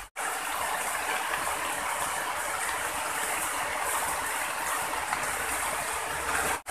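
Steady rain falling on a shallow muddy pool and the surrounding vegetation, an even hiss.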